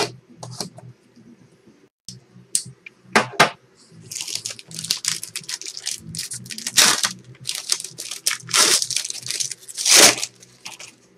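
Trading-card box packaging being torn open and crinkled by hand: a run of short rasping tears and crinkles, sparse at first and coming thick and fast from about four seconds in.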